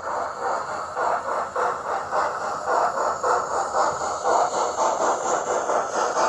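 OO gauge model train running along the track, its wheels giving a fast, even clatter over the rails.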